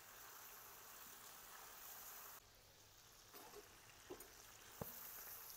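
Faint sizzling of chicken pieces frying in hot oil in a karahi, dropping a little partway through, with a few light clicks in the second half.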